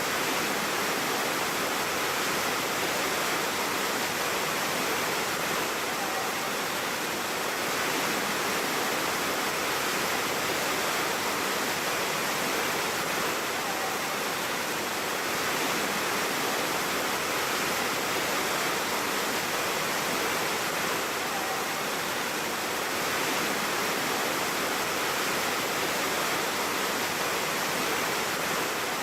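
Waterfall: water falling and rushing in a dense, steady hiss that never lets up.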